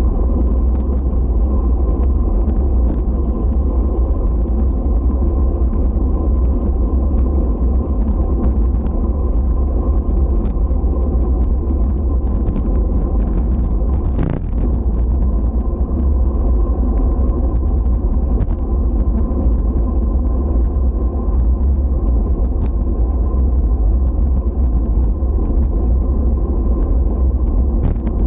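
A steady low rumble with a few faint ticks, and one brief sharper noise about halfway through.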